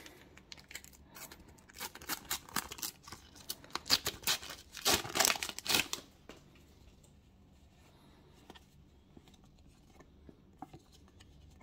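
Panini sticker packet being torn open by hand: a run of quick rips and crinkles lasting about five seconds, then only faint handling of the stickers.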